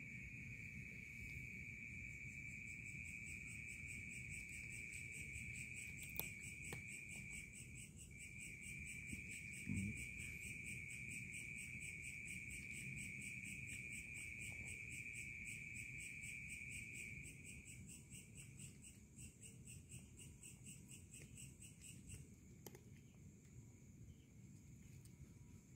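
Night insects trilling steadily. One high trill stops a little after halfway, while a higher, fast-pulsing trill keeps going. A single soft thump about ten seconds in.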